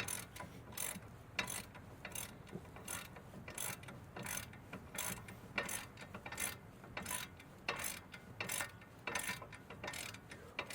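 Hand ratchet wrench clicking in a steady run of short sharp clicks, about two to three a second, as a bolt on the truck's front brake assembly is run down before torquing.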